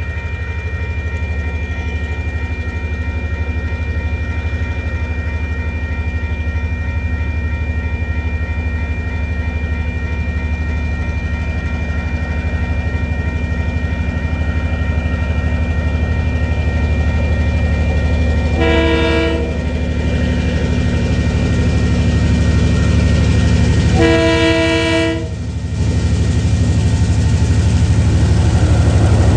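TasRail DQ class diesel locomotive approaching a level crossing, its engine rumble slowly growing louder, sounding its horn twice: a short blast about two-thirds of the way in, then a longer one some five seconds later. A steady high warning tone from the crossing rings throughout.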